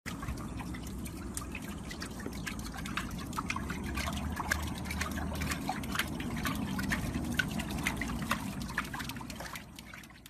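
Water splashing and dripping as a small dog paddles its legs in shallow water in a plastic paddling pool: a steady slosh with many small quick splashes.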